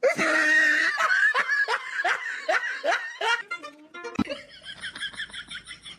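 A person laughing hard in a run of loud 'ha' syllables, about three a second, each falling in pitch. After a sharp click about four seconds in, a quieter, faster run of high-pitched pulses fades away.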